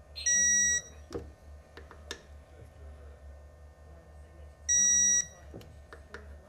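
Digital torque wrench beeping twice, each a high electronic beep of about half a second, some four and a half seconds apart, signalling that the set 30-degree turn on a bolt has been reached. Faint ratchet clicks in between.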